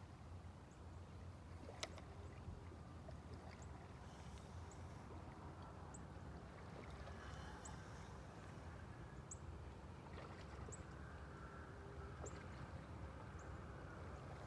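Faint lakeside ambience: a steady low wash of water, with one sharp click about two seconds in and short high chirps every second or two.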